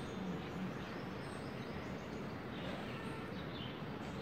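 Steady outdoor background noise with a few faint, brief bird chirps, mostly in the second half.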